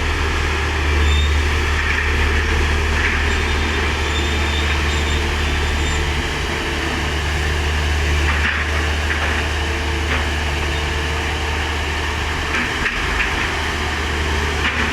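Heavy diesel construction machine engine running steadily with a deep hum, with a few light metallic clanks now and then.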